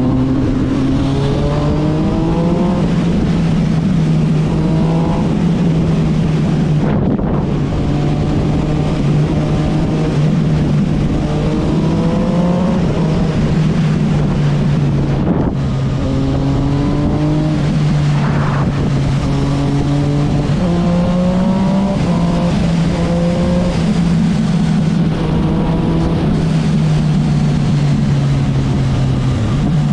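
Yamaha MT-09's inline three-cylinder engine through an Akrapovic exhaust, running loud and continuous, its pitch climbing and dropping back several times as it pulls through the revs and gears.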